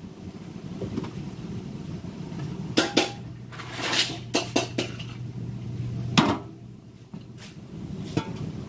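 Metal steamer pot and lid clanking as they are handled, a scatter of sharp metallic clinks and knocks, the loudest around three to five seconds in and again about six seconds in.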